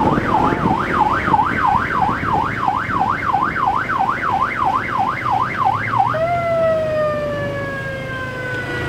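Electronic vehicle siren in a fast yelp, sweeping up and down about three times a second; about six seconds in it switches to one long tone that slowly falls in pitch. Vehicle engine and road noise run underneath.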